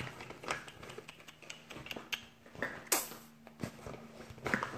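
Rummaging through makeup products: small cases and tubes clicking, knocking and rustling as they are moved about, with a sharper knock about three seconds in.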